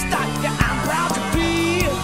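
Rock drum kit with cymbals played along to a rock song with electric guitar, drum hits falling in with the song's beat.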